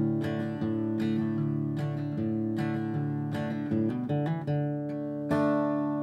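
Background music of plucked, picked notes, with a new chord struck near the end that rings out.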